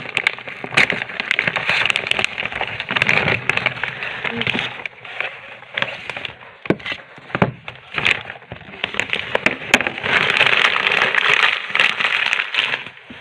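Wrapping paper and plastic packaging crinkling and tearing as a gift is unwrapped by hand, with many sharp crackles. The crackling is busy at first, thins to scattered clicks in the middle, then comes back densest from about ten seconds in.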